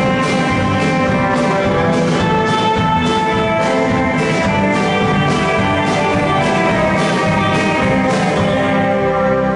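Rock band playing: guitars over a steady drum beat, with drum hits about twice a second.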